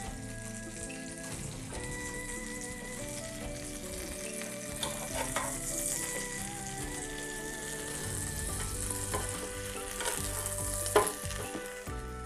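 Buttered bread sizzling on a hot grill pan, with a spatula scraping and knocking against the pan as the slices are turned; the sharpest knock comes about eleven seconds in. Background music with a melody plays under it.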